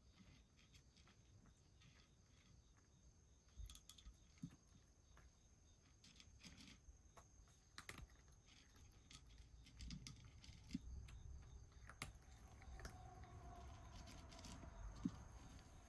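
A cat eating from a shallow dish, with faint, irregular clicks and smacks of chewing and licking against a very quiet background.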